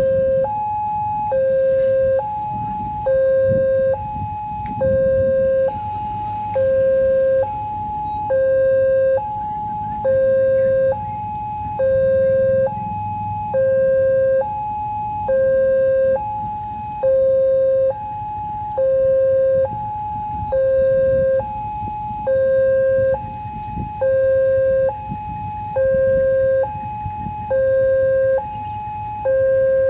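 Railway level-crossing warning alarm from the horn speaker on the crossing signal: an electronic two-tone signal alternating a lower and a higher note, each about 0.8 s long, repeating steadily. It means the barriers are down for an approaching train. Low traffic rumble lies underneath.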